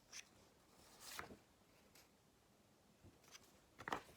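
Near silence: quiet room tone with a few faint, brief rustles and clicks.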